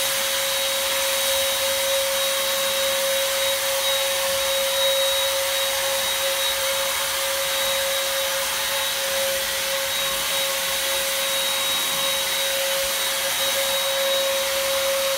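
Electric motor of a PowAir Super Sprayer running steadily while it sprays odour-neutralising liquid through its hose: an even hiss with a steady high whine that does not change.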